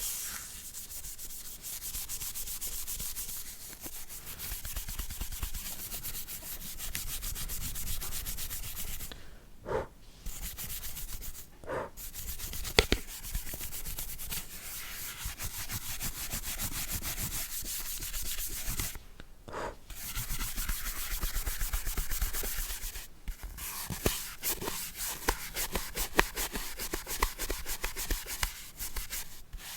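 Brush bristles scrubbing quickly back and forth over a hard surface, a close ASMR cleaning sound, stopping briefly a few times.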